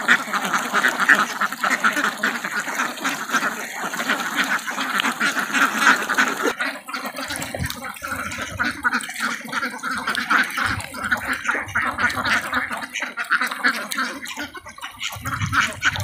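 A large flock of domestic ducks quacking all at once in a continuous, overlapping din, the calls thinning a little about six and a half seconds in.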